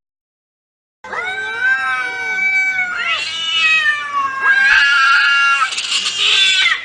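Cats caterwauling in a fight: long, drawn-out yowls that slide up and down in pitch, starting after about a second of silence.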